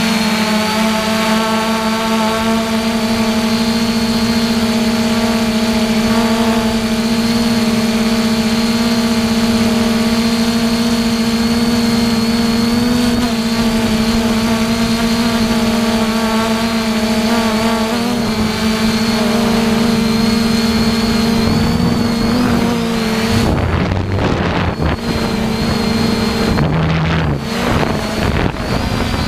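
Multirotor drone's motors and propellers humming steadily, picked up by the onboard camera. From about 23 seconds in, wind buffets the microphone with low rumbling gusts.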